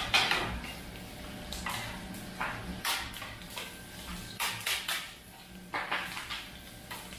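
Metal spatula clanking and scraping on a Goldstein flat-top steel griddle as kottu is cooked: about a dozen irregular sharp clatters, loudest right at the start, over a steady low hum.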